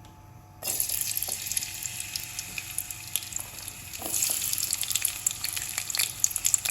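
Chopped garlic dropped into hot oil in a kadai, sizzling and crackling as it starts to fry. The sizzle starts suddenly about half a second in and gets louder about four seconds in.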